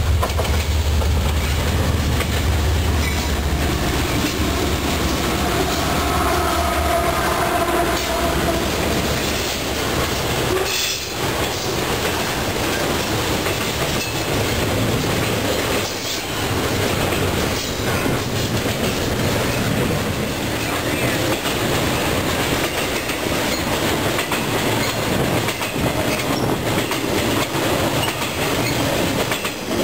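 CSX freight train passing close by. A deep diesel locomotive rumble is heaviest in the first few seconds, then gives way to the steady rattle and clatter of intermodal flatcars loaded with truck trailers, their wheels clicking along the rails.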